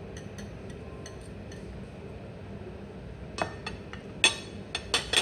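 Stainless knife and fork clinking and scraping on a ceramic dinner plate while cutting food: light taps at first, then a quick run of about six sharper clinks in the second half.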